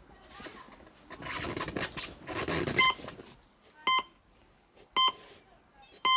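Rustling and handling noise for about three seconds. Then the electric motor's speed controller on a model drone beeps: short, sharp, evenly spaced beeps about once a second, the controller's signal that it is powered up and waiting before the motor will run.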